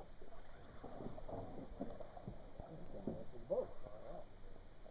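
Indistinct, muffled voices talking, with a few faint light knocks.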